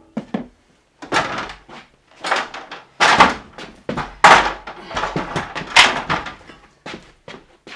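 A run of loud, irregular bangs, knocks and scraping thumps, as of heavy building parts being worked loose and shifted; the loudest bangs come about three and four seconds in.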